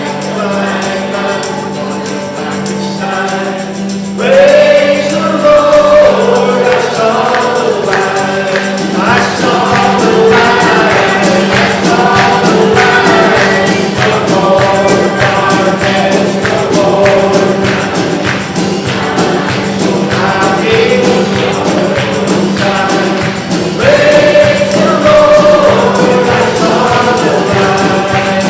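Gospel worship song: voices singing together over a band with a steady percussive beat, getting louder about four seconds in.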